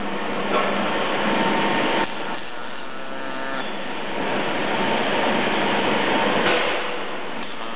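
KUKA IR 360 welding robot at work: steady machine noise with a faint whine as the arm moves the welding torch. It gets louder, starting and stopping sharply, for about a second and a half near the start and again for a couple of seconds in the middle.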